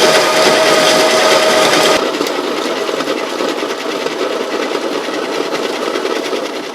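Baratza Encore conical burr grinder running, its motor and burrs grinding coffee beans. About two seconds in the steady hum drops away and it carries on a little quieter.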